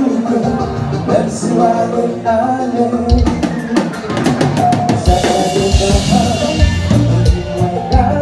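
Live Haitian kompa band playing: a male singer over bass guitar and drum kit. The kick drum and cymbals come in strongly about three seconds in.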